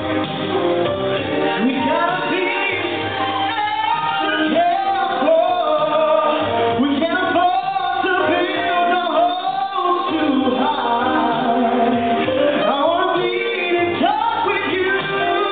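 A man singing into a microphone over a karaoke backing track with a steady bass line.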